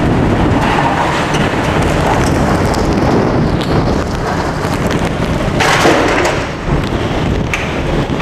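Hurricane-force wind and driving rain beating against a building, heard from behind a window: a loud, steady rush of noise that surges briefly about six seconds in.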